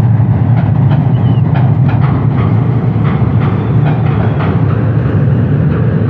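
Train running along the track: a steady, loud rumble with repeated clicks of the wheels passing over rail joints, a few a second.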